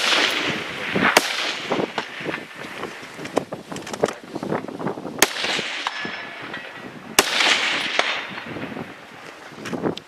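Rifle shots at a 3-gun match: four loud cracks spaced a second to four seconds apart, one at the very start, then about a second, five seconds and seven seconds in. Each crack is followed by an echo lasting about a second.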